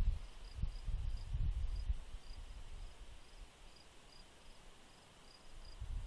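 Cricket chirping steadily, about three short high chirps a second, over a faint steady hiss. Irregular low rumbling in the first two seconds.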